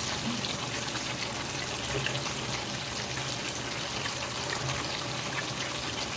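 Tofu deep-frying in hot oil in a wok: a steady sizzle with many fine crackles.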